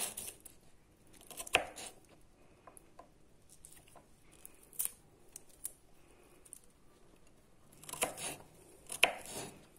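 Knife chopping onion and garlic: a few irregular, crisp cuts, the loudest about a second and a half in and two clusters near the end.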